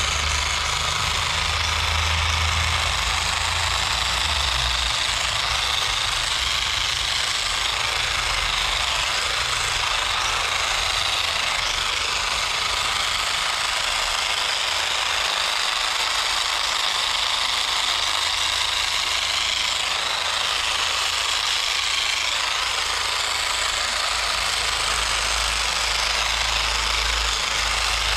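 Small cordless electric trimmer running steadily, its blades buzzing as it cuts through garden plants.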